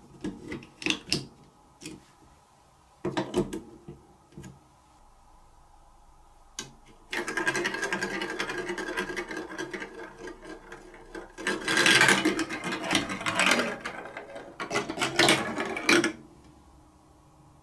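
A few sharp clicks as plastic block-coaster track pieces are snapped into place, then a plastic ball rolls through the plastic marble run for about nine seconds, rumbling along the chutes and circling a funnel, louder near the end before it stops.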